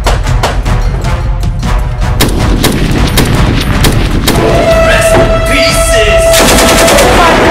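Dubbed-in gunfire sound effects: fast strings of shots layered over a music track, with held musical tones coming in about halfway through.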